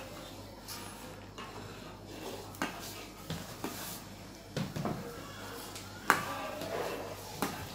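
Steel spoon stirring thick, simmering kheer in a steel pot, knocking and scraping against the pot's sides in irregular clinks about a second apart, over a steady low hum.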